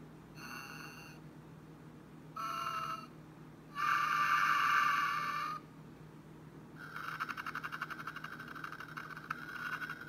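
Electronic snoring-and-whistling sound effect from an animated sleeping Santa and Mrs Claus figure set. It plays two short whistled tones, then a longer, louder one about four seconds in, then a buzzy, fluttering whistle for the last three seconds, over a faint low hum.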